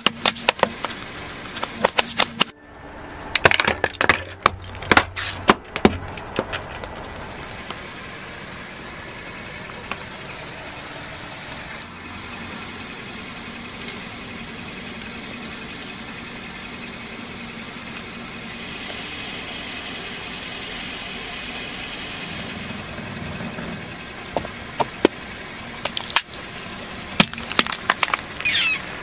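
A car tyre rolls over a plastic toy tiara and crushes it with a burst of sharp cracks and snaps, followed by a few seconds more of crackling. A long stretch of steady background noise follows. Near the end comes another quick run of cracks and crunches as the tyre flattens a plastic cup of jelly.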